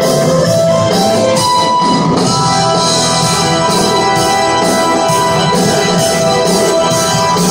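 Live rock band playing loudly and evenly: held organ-like keyboard chords over electric guitar, bass and drums keeping a steady beat.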